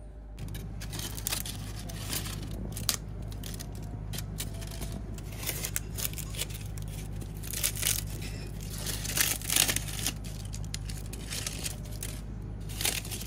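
Dry, dead leaves crackling and rustling as a hand pulls them off a potted houseplant, in irregular crackles that are loudest about nine to ten seconds in. A steady low hum runs underneath.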